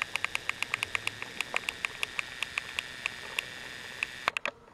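Battery-powered Trackmaster toy train motor running with a steady whine and a quick train of sharp clicks, about five a second, spacing out in the second half. Near the end there is a loud click and the motor stops.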